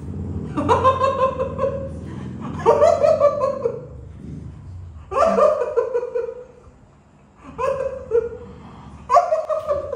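Women laughing hard in about five separate bursts, each falling in pitch, with short quieter gaps between.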